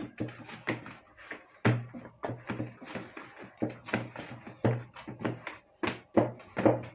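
Chapati dough being kneaded by hand in a plastic basin: repeated dull thumps of the dough pushed and slapped against the bowl, irregular, roughly two a second.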